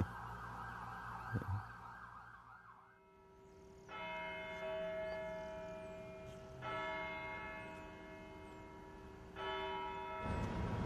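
A large tower bell tolling three strokes, a little under three seconds apart, each stroke ringing on in several steady tones and slowly fading. Street noise rises just before the end.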